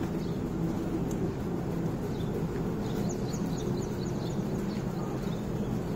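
Steady low rumble of outdoor background noise, with a quick run of high chirps about three seconds in.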